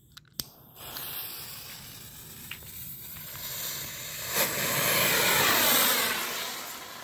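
Clicks of a butane torch lighter, then a steady hiss as the fuse and the potassium nitrate–dextrose sugar rocket motor burn on the pad. About four seconds in, a sharp pop, and the motor's hiss swells into a loud rushing roar as the small superglue-tube rocket lifts off, then fades away.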